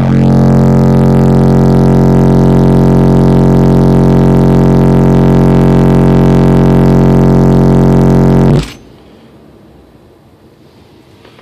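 SoundQubed HDC3 15-inch car subwoofers, driven by a CT Sounds CT-3K amplifier, playing a 45 Hz burp: one steady, very loud tone lasting about eight and a half seconds, heard with a stack of overtones, that cuts off suddenly. It is heard inside the sealed-up car; the SPL meter on the dash reads about 150.7 dB.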